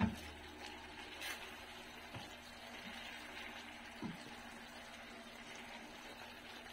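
Vegetables and chicken simmering in sauce in a stainless steel pan, faintly bubbling, while a spatula stirs them. The spatula knocks against the pan a few times, most sharply at the start.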